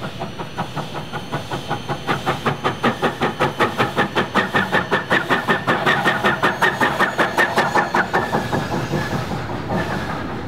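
NZR Ww class 4-6-4T steam tank locomotive working a train past, its exhaust chuffing in a quick, even rhythm of about four to five beats a second. The beats grow louder as it comes close and fade away near the end.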